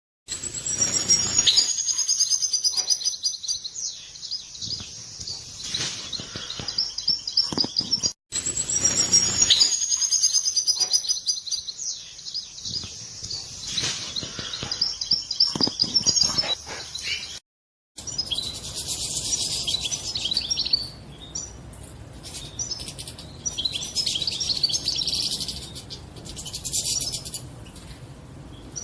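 European goldfinch twittering song, fast, tinkling chirps and trills. The same passage plays twice, then after a brief dropout a different recording of twittering follows over a steady hiss.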